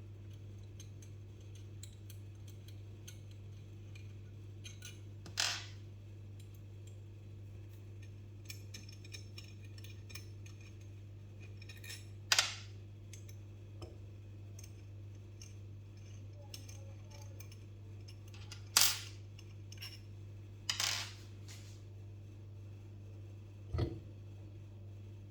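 Metal parts of a burr grinder being handled during disassembly: scattered light clicks and five louder sharp clinks, over a steady low hum.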